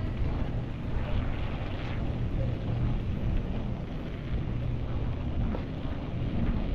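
Steady low rumble of wind on the microphone and tyres rolling on asphalt as a bicycle rides along a street.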